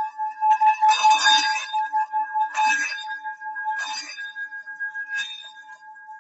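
Metal Bali singing bowl ringing with two steady overlapping tones and a fainter low hum, a ragged, jangly burst of sound recurring about every second and a half as it is played. The bursts grow weaker toward the end.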